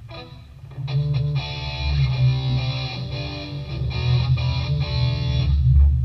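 Electric guitar played through an amplifier at a sound check: a run of plucked notes and strummed chords that stops about five and a half seconds in. A steady low rumble runs underneath.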